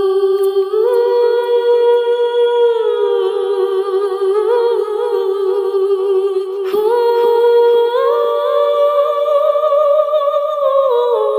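A single voice humming a slow, wordless melody: held notes with a slight waver, stepping and gliding up and down. There is a brief sharp click a little past halfway.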